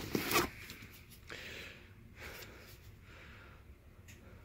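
Ryobi cordless impact driver being lifted out of a fabric tool bag: a few short knocks and rustles in the first half second, then faint handling noise.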